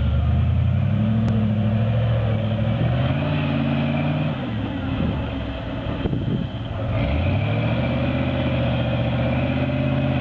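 Engine of a Toyota FJ40 Land Cruiser rock crawler revving under load on a steep rock climb, its pitch rising and falling. The revs drop briefly about six seconds in, then climb again.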